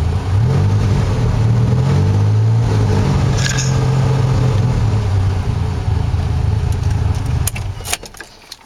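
1981 DeLorean DMC-12's PRV V6, fitted with DPI camshafts and a cat-delete exhaust, running loud as heard inside the closed cabin. The revs rise and fall a couple of times, then hold steady, and the sound drops away near the end.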